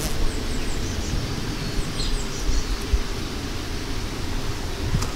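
Steady outdoor hiss with a low wind rumble on the microphone, and a few short, faint, high bird chirps.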